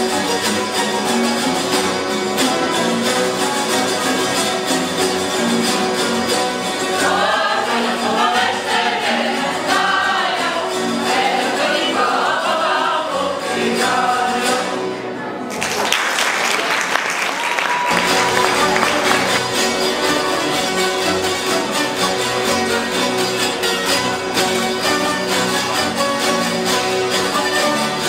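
An ensemble of citaras, fretted folk table zithers, strummed together in a folk tune. For several seconds in the middle, voices sing along. About halfway through, the steady chording breaks off briefly into a noisy stretch before the ensemble resumes.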